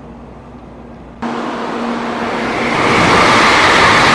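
Tokaido Shinkansen N700-series train passing through a station at high speed: a loud, even rushing of air and wheels that builds over the next two seconds. It starts abruptly about a second in; before that, a low steady rumble inside a moving train's cabin.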